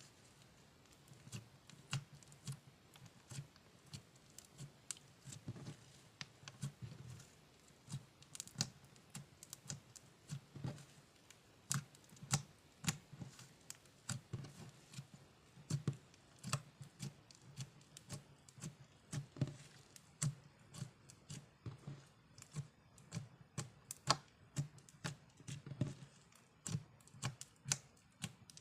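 Hands squishing and stretching slime, making irregular wet clicks and pops, one or two a second.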